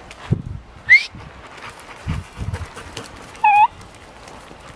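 A dog gives a short, high, pitched yelp about three and a half seconds in, after a brief high rising call near one second in. A few low thumps come in between.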